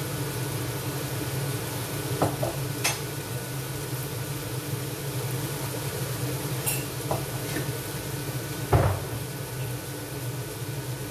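Dishes and utensils clinking and knocking on a kitchen counter several times, the loudest knock about nine seconds in, over a steady low hum and hiss.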